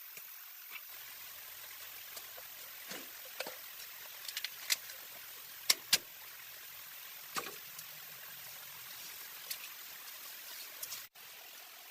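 Steady hiss of running water with scattered sharp clicks and knocks, two louder ones close together about six seconds in.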